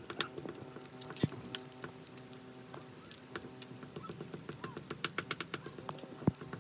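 Wood cooking fire crackling under a wok of frying chicken: scattered sharp ticks and crackles, with two louder knocks, one about a second in and one near the end.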